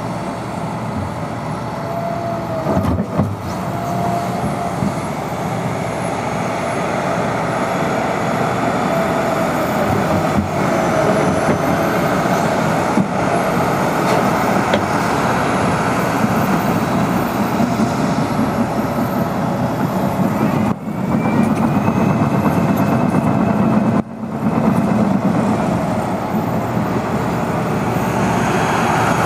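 Liebherr R 926 crawler excavator working: its diesel engine running steadily under load with the hydraulics whining as the boom and bucket move, digging and slewing. The sound briefly drops away twice in the last third.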